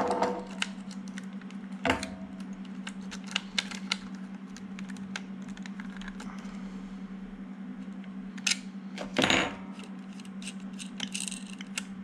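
Small metal clicks and clinks of a metal switch-nut socket tool and small parts being handled on an opened radio transmitter, with two louder knocks about two seconds in and about nine seconds in. A steady low hum runs underneath.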